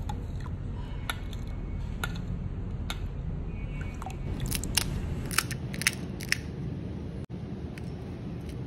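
Food-preparation sounds over a steady low hum: a few sharp clicks about a second apart, then a cluster of crisp, crunchy cracks around the middle, fitting a spoon working in a glass bowl of pani and crisp puri shells being handled and cracked.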